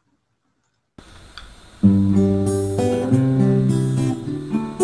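Near silence for about the first second, then a guitar starts the introduction of a song, playing ringing chords that change about once a second.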